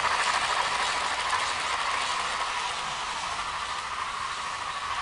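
Sound-fitted Bachmann OO-scale Peppercorn A1 Pacific model steam locomotive running with its DCC sound decoder playing steam chuffs over the rattle of its wheels on the track. The sound fades steadily as the train runs away.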